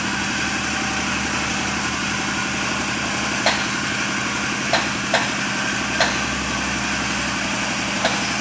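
Bi-fold hangar door's drive motor running steadily as the door lifts, with five sharp clunks from the door mechanism in the second half.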